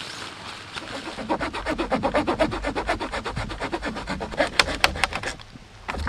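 A small blade sawing into a dry wooden branch: a quick, even run of rasping strokes, about ten a second, that stops about five seconds in.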